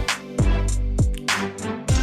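Background music with a steady, bass-heavy beat of deep, sliding kick drums.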